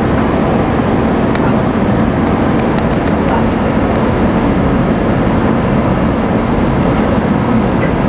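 A SEPTA Market-Frankford Line elevated train running along the track, heard from inside the car as a loud, steady rumble.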